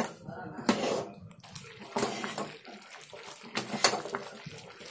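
Metal spoon stirring thick guava pulp and sugar cooking down into jam in an aluminium pan: wet slopping of the thick mixture, with a few sharp knocks and scrapes of the spoon against the pan. The jam is kept stirred without stopping so that it does not form lumps.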